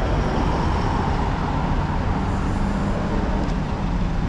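Steady road traffic noise with the low, even hum of a running engine.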